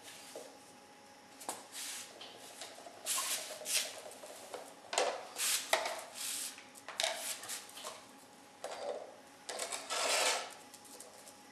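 Irregular rustling and scraping as plastic cups and a card board are handled and set down on a tiled floor.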